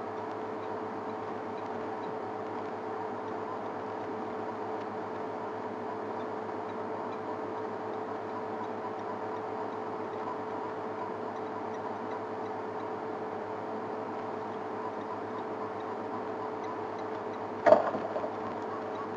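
An African elephant trumpets once near the end, a short, loud, sudden blast over a steady hum.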